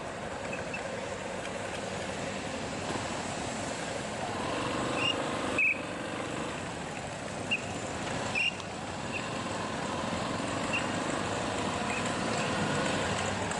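Steady vehicle running noise, growing a little louder about four seconds in, with short high chirps scattered through it now and then.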